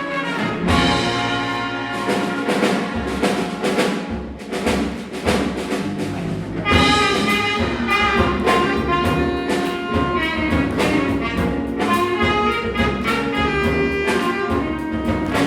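A youth jazz big band plays a jazz-funk tune live, with trumpets and trombones over the rhythm section. About seven seconds in, the full brass comes in louder and brighter.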